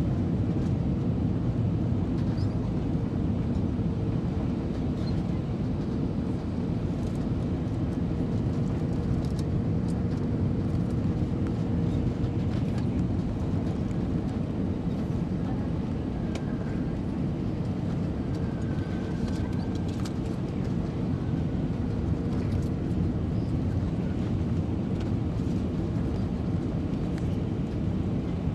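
Steady cabin noise inside an Airbus A320-232 on final approach: its IAE V2527 engines and the airflow over the fuselage, an even low rumble with a faint steady hum.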